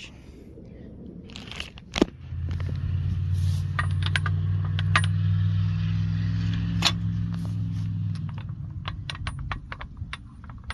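Metal clinks and clicks of a Cat 2 quick hitch pin bushing being handled and set into a rusty steel quick hitch hook: a sharp click about two seconds in, scattered clinks, then a quick run of clicks near the end. A steady low engine hum runs under the middle of it and fades out.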